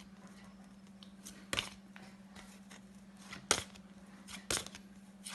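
Cardboard flashcards being flicked through quickly: sharp snaps and taps, the loudest about one and a half, three and a half and four and a half seconds in, over a steady low hum.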